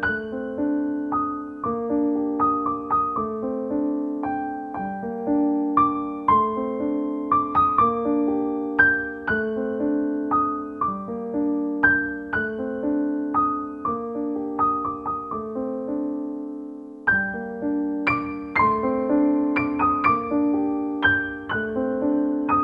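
Background piano music: single struck notes ringing and fading over repeated low chords.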